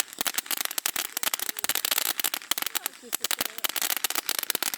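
Fireworks crackling: a dense, rapid run of sharp pops and snaps.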